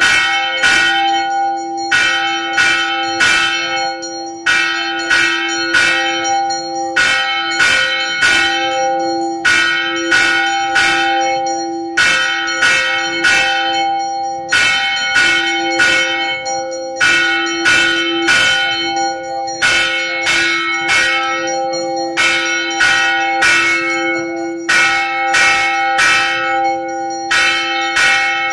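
Temple bell struck over and over in a steady rhythm of groups of two or three strikes, its tone ringing on between strokes.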